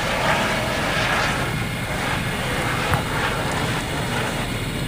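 Cockpit noise of a Eurocopter EC120 Colibri helicopter in flight: the turboshaft engine and rotors make a steady drone. There is one short click about three seconds in.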